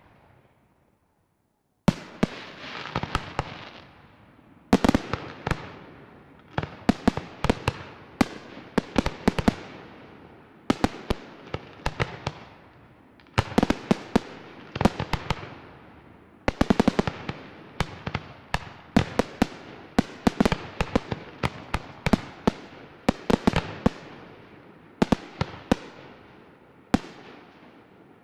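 Aerial fireworks display: after about two seconds of near silence, shells start bursting in quick clusters of sharp bangs every second or two, each cluster dying away in echo before the next.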